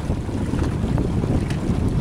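Wind buffeting the microphone with a heavy, steady low rumble, over water rushing past the hull of a Westerly Centaur sailing yacht under way.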